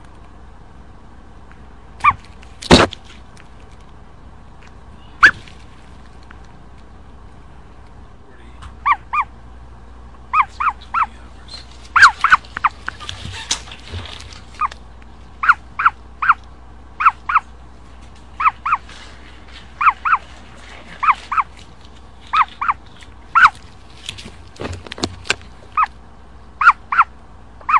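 Ostrich chick peeping from inside its broken-open egg as it hatches: short high peeps, often in pairs, few at first and coming thick and fast after about eight seconds. A sharp click is heard near the start.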